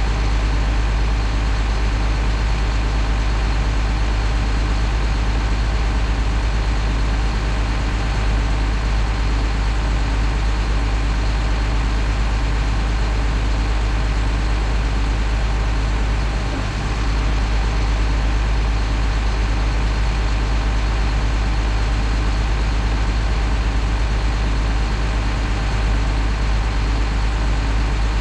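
Diesel engine of a Tadano Faun ATF50G-3 all-terrain mobile crane idling steadily, with a deep low rumble and a brief dip in level about halfway through.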